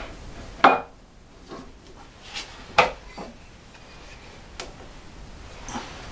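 A few sharp knocks and clunks, two louder ones about half a second and nearly three seconds in, with faint handling noise between: a faceplate carrying a wooden blank being fitted onto a wood lathe's spindle.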